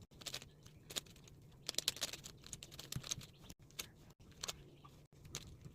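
A 5x5 Rubik's cube's plastic layers clicking as they are turned by hand, in quick irregular runs of light clicks, while its centres are being solved.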